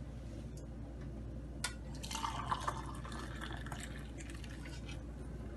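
Chicken yakhni broth being poured into a serving cup for about a second, after a short click.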